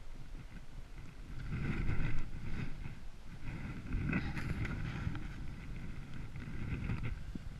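Hiker's footsteps in snow, with jacket fabric rubbing over a chest-mounted camera's microphone: an uneven swishing and scraping over a low rumble from handling.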